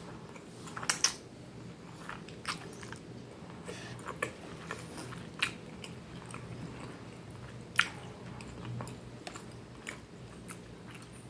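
A person chewing a mouthful of spaghetti and meatballs in tomato sauce close to the microphone, with scattered sharp clicks over a faint low hum.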